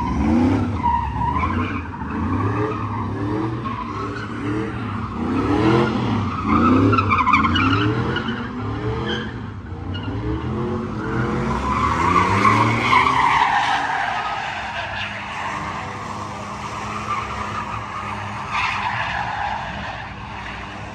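Ford F-150 pickup doing donuts: the engine is revved up and down again and again, about once a second, over squealing tyres for the first ten seconds or so, then a long wavering tyre squeal that fades as the truck moves off.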